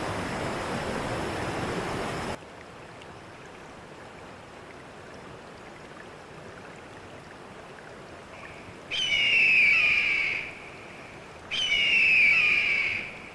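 A steady rush of water that cuts off abruptly about two seconds in, leaving a faint hiss. Then two loud bird calls, each about a second and a half long, made of several falling notes.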